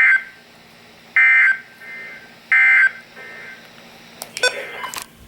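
Emergency Alert System end-of-message signal: three short, loud SAME data bursts about 1.3 s apart, closing the National Weather Service warning. A few sharp clicks follow near the end.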